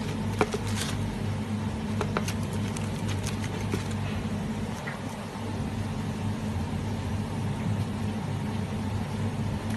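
Knife cutting through charred banana leaves and crinkly aluminium foil around a baked chicken: sharp crackles and taps, mostly in the first four seconds. A steady low hum underlies it.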